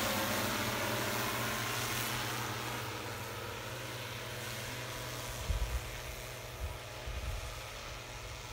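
Crop-spraying multirotor drone's propellers humming steadily in flight, the sound fading as it flies away. A few low thumps about halfway.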